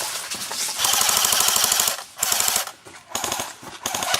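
Airsoft guns firing on full auto in rapid bursts: a long burst of about a second, then two shorter bursts.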